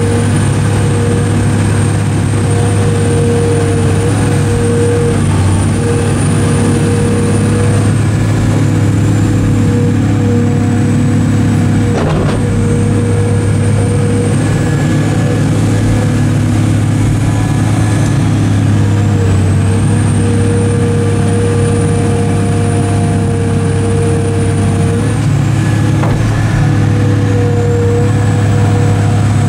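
Caterpillar 345B L Series II excavator's diesel engine running steadily under working load while it digs and swings, with a high whine that sags and recovers several times. Two short sharp knocks, about twelve seconds in and near the end.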